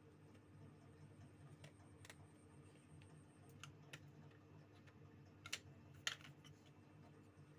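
Near silence with a steady low hum and a handful of light clicks and taps, the two loudest about five and a half and six seconds in.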